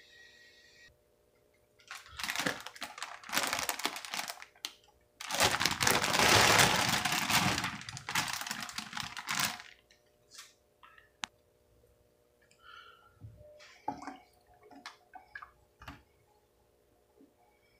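A plastic bag of cauliflower florets crinkling, then the florets tipped out and tumbling into a bowl of cut potatoes for about four seconds. A few light clicks and taps follow.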